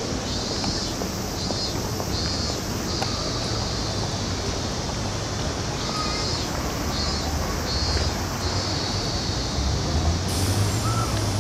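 Steady city background noise with a low traffic rumble that swells near the end, and a faint high pulsing buzz repeating about twice a second.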